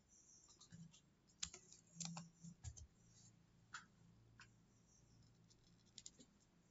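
Faint clicks and taps of a computer keyboard and mouse, a scattered handful of separate keystrokes and clicks, bunched together between about one and a half and three seconds in and again near the end.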